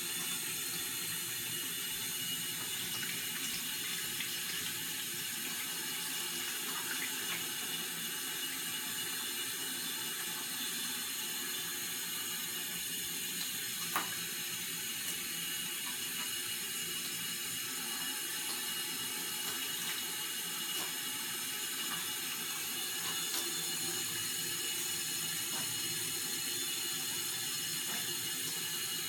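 Water running steadily from a tap, with a single sharp click about halfway through.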